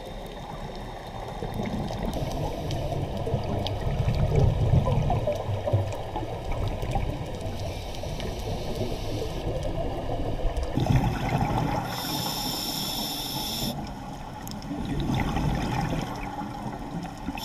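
Scuba breathing heard underwater: a diver's regulator hissing on an inhale about two-thirds of the way through, and exhaled bubbles bursting out in low rumbling gushes several times.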